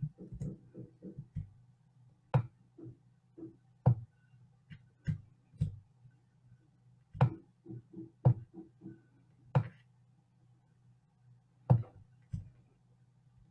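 Scattered clicks and taps of a computer mouse and keyboard, some single and some in quick little runs, over a faint steady low hum.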